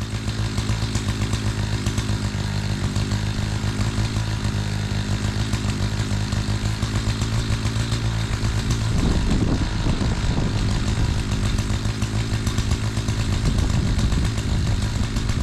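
Gas chainsaw with a freshly sharpened chain running loudly at high revs, cutting a big log round. Its engine note is steady at first, then from about nine seconds in it breaks up and wavers under changing load.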